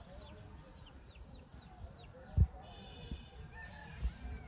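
Birds calling, with chickens clucking: a run of short falling chirps and a brief held call midway. Two dull low thumps stand out, the louder about halfway through and a second near the end.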